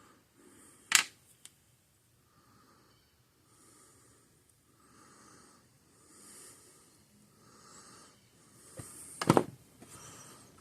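Sharp click about a second in and a louder cluster of clicks and knocks near the end, from small parts and tools being handled during a repair. Slow, soft breathing close to the microphone comes about once a second.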